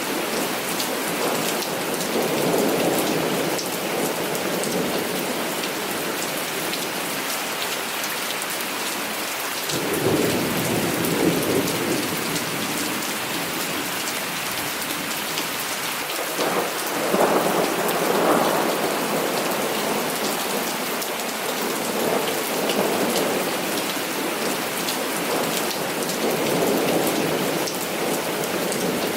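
Heavy rain falling steadily, with several low rolls of thunder swelling and fading. One breaks suddenly about ten seconds in, and another, among the loudest, rolls a few seconds after the middle.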